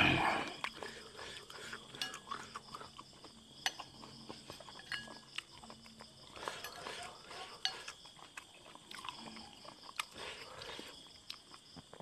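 A metal spoon clinking and scraping in a ceramic soup bowl, with the sounds of someone eating: scattered sharp clicks and a few short stretches of chewing and slurping. A brief loud rush of noise comes at the very start.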